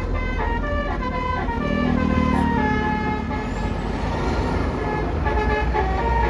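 Bus telolet horn, a Basuri multi-note air horn, playing a tune of quick stepped notes over the low rumble of the bus's engine.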